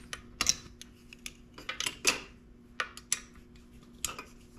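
Hand tools clinking and clicking against small metal parts in irregular, sharp knocks, a few each second.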